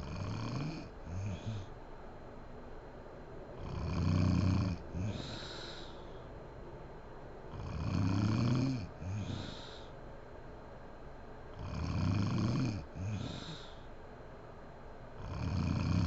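A woman snoring in a steady rhythm, about one breath every four seconds; each snore is a longer sound followed closely by a shorter one.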